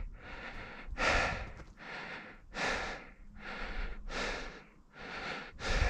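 A man breathing hard and fast close to the microphone, a steady rhythm of breaths in and out, a little more than one a second.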